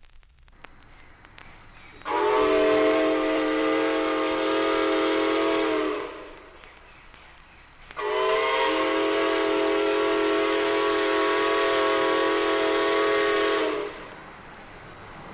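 Locomotive chime whistle sounding two long, steady chord blasts, the first about four seconds and the second about six seconds long, over the hiss and crackle of an old record.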